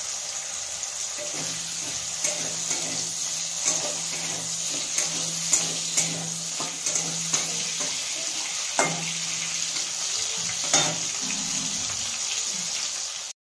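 Potato pieces frying in hot oil in a steel kadhai, sizzling steadily, while a metal spatula stirs them, knocking and scraping against the pan every second or two.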